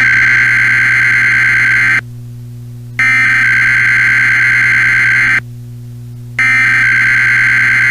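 Emergency Alert System SAME header tones: a harsh, buzzing digital data burst that repeats after about a second's pause, with a third burst starting near the end, over a steady low hum.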